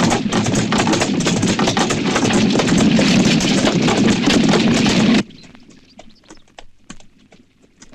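Horse-drawn wagon loaded with wooden barrels rattling fast along a dirt track, with the clattering hooves of its two-horse team. The noise cuts off suddenly about five seconds in, leaving fainter scattered hoof clops.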